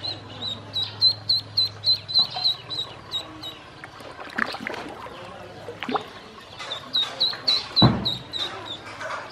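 Ducklings peeping in runs of short high chirps, about three or four a second, quieter for a few seconds in the middle. A few short knocks and one louder thump about eight seconds in.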